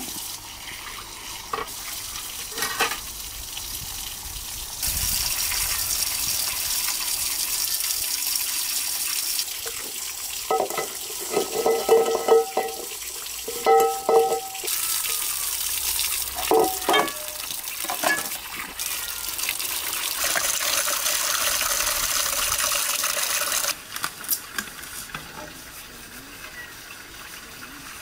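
Tap water running into a concrete sink in two long spells while aluminium pots and basins are washed. Sharp metal clanks with brief ringing come from the pots knocking together, in a cluster about halfway through.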